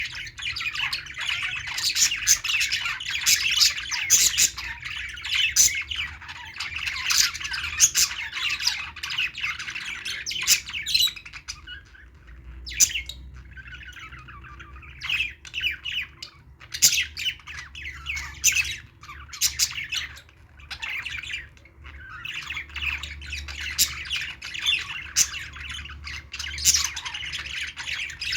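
A group of small pet parrots chirping and squawking in rapid, overlapping calls, briefly thinning out about halfway through before picking up again.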